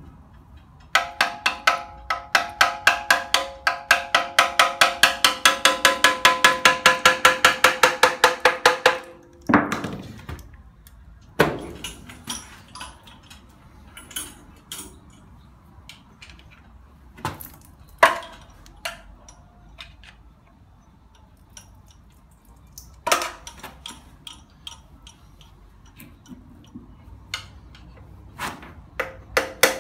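Hand ratchet wrench clicking fast and evenly, about five to six clicks a second, with a metallic ring for about eight seconds as bolts are undone. It is followed by scattered single clanks and knocks of metal parts and tools being handled.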